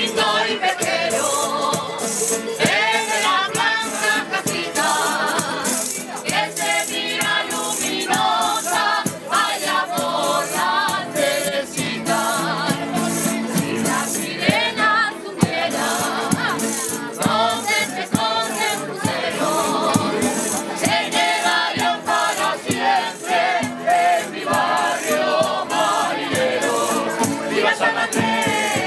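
Canarian folk group singing together in chorus over strummed guitars and timples, with a jingling tambourine and a stick-beaten drum keeping the beat.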